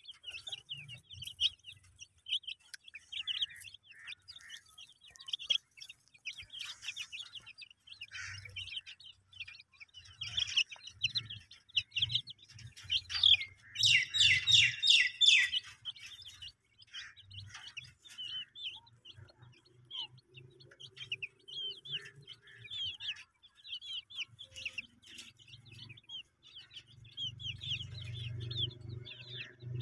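Baby chicken chicks peeping: a steady stream of short, high peeps from several chicks, densest and loudest about halfway through. A low rumble comes up near the end.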